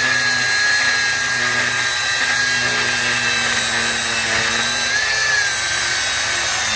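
Power tool motor running steadily with a high whine that wavers slightly in pitch, working on a locked steel safe.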